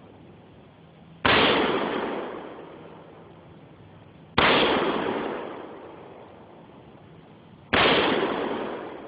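Three single shots from an AR-15 rifle fired in slow succession, about three seconds apart, each followed by a long echo that dies away over about two seconds.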